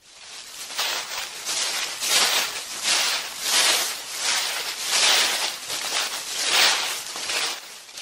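Footsteps crunching through dry leaf litter on a forest trail, at a steady walking pace of a little more than one step a second, fading near the end.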